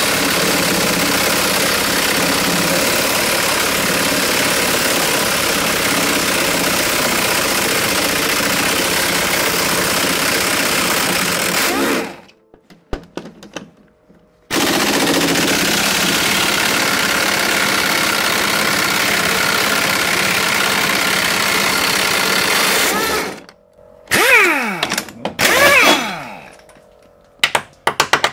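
Pneumatic impact wrench hammering on a nut: one long run of about twelve seconds, a short pause, then another run of about eight seconds. Two shorter bursts with a sweeping pitch follow, and a few light clicks near the end.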